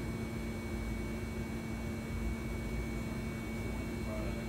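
Steady hum of lab equipment and ventilation: an even low rumble with a constant low tone that does not change.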